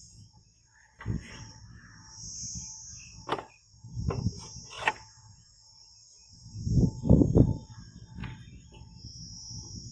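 Knocks and thuds from a folding study table being handled, the loudest cluster about seven seconds in, over a steady high chirring of crickets.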